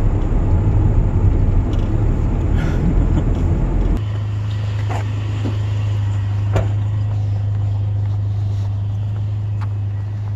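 Vehicle running: a low rumble of road noise for about four seconds, then it drops suddenly to a steady low engine hum, with a few faint clicks.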